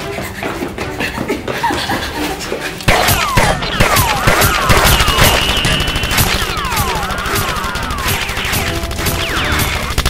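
Rapid gunfire sound effects, volleys of shots that get much louder about three seconds in, with sweeping whistling glides in the middle, over background music.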